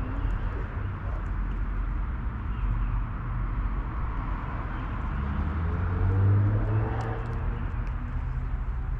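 Outdoor ambience: a steady low rumble like distant traffic, with an engine sound swelling and fading about six seconds in.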